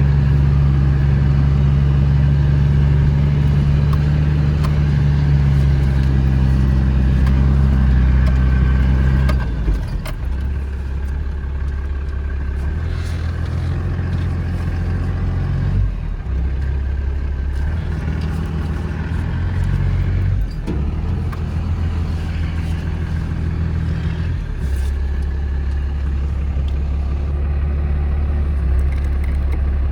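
Vehicle engine running steadily while driving, its note dropping about a third of the way in and shifting several more times.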